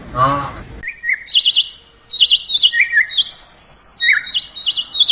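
A songbird chirping in quick, high warbling trills, phrase after phrase, starting about a second in. Just before it, the last of a run of deeper pitched animal calls ends.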